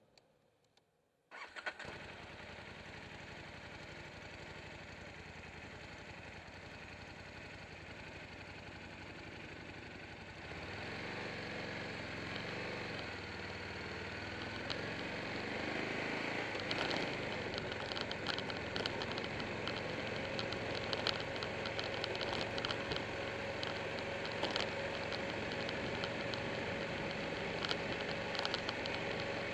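Buell 1125R's V-twin engine starting about a second in and idling, then the bike pulling away about ten seconds in, the engine rising in pitch as it speeds up and then running steadily, with wind noise on the microphone.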